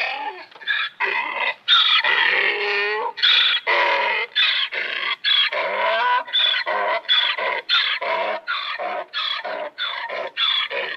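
Asian wild ass braying: a long run of pitched calls, the first few long, then shorter ones about two a second.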